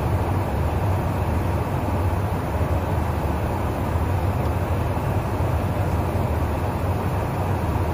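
Steady in-flight cabin noise in the boom pod of a KC-135 Stratotanker: a constant low drone of engines and airflow, with no changes.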